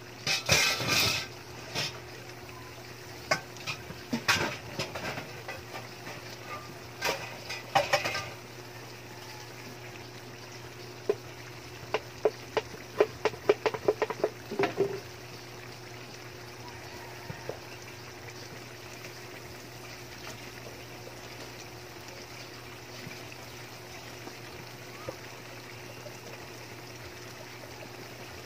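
Wok of string beans in coconut milk simmering. Runs of quick sharp pops and clicks come through the first fifteen seconds or so, then only the steady simmer is left.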